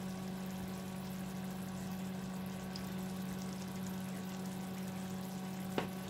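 Tomato stew simmering in the pot, a steady bubbling hiss over a constant low machine hum, with a short tap of the spatula near the end.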